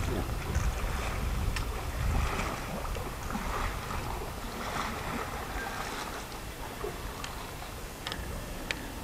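Water sloshing and splashing as a bull moose wades through shallow lake water, over a low rumble of wind on the microphone. A few faint sharp clicks come near the end.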